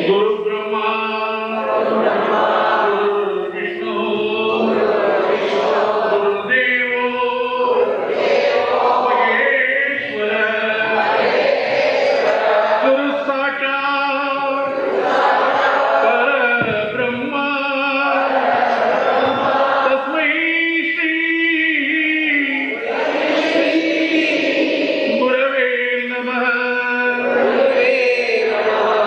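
Sanskrit devotional chanting: opening prayer verses sung in continuous melodic phrases.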